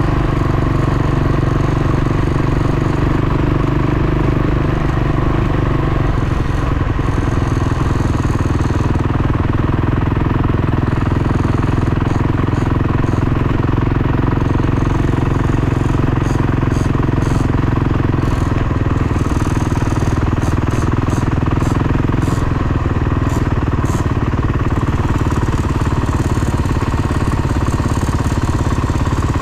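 Dirt bike engine running steadily at an even pace, with no big revs. Scattered light clicks come in around the middle.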